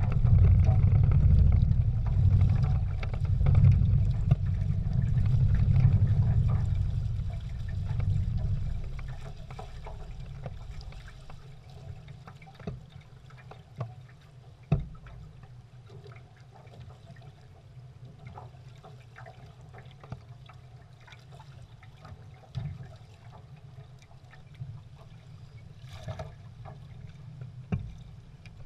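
Water lapping and splashing against the hulls of a Prindle 16 catamaran under sail. A heavy low rumble fills the first eight seconds or so, then fades, and occasional small knocks sound throughout, one sharper about fifteen seconds in.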